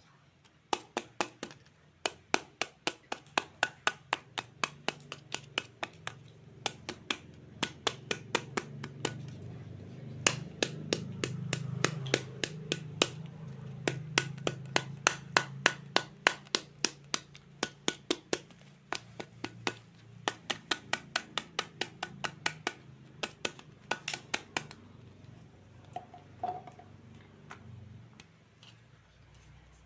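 Toy fruit being cut with a toy knife: rapid sharp plastic clicks and taps, about three or four a second in long runs, over a low hum, stopping a few seconds before the end.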